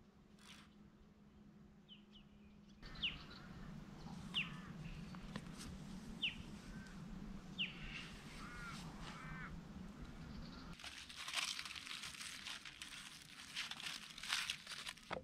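Birds calling, with a series of short sharp falling whistled notes a second or two apart and softer chirps between them. In the last few seconds a dense crackling noise takes over.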